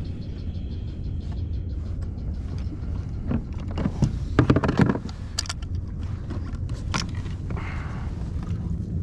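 Knocks, clicks and scrapes of a plastic fish-measuring board being handled against a plastic kayak deck, loudest in a cluster about four to five seconds in, over a steady low rumble.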